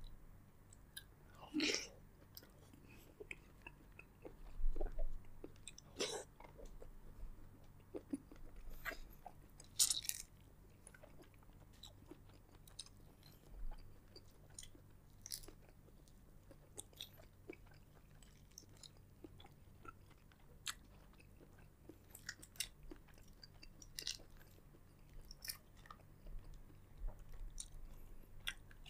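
A person chewing and biting into seafood boil close to the microphone: irregular short wet clicks and smacks, with a few louder bites about two, six and ten seconds in.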